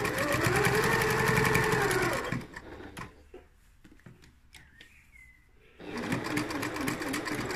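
Electric sewing machine stitching through a curtain hem with a rapid needle tick. The motor speeds up and slows down over about two seconds and stops for roughly three seconds, then stitches again steadily near the end.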